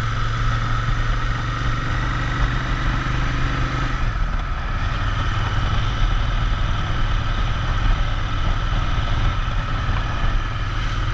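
Royal Enfield Interceptor 650's parallel-twin engine running steadily, its note changing about four seconds in.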